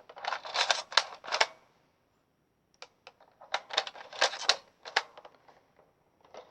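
Plastic toy shotgun shells being pushed one by one into the tube magazine of a toy pump-action shotgun: quick clattering clicks and rattles of plastic in two bursts, with a pause between them.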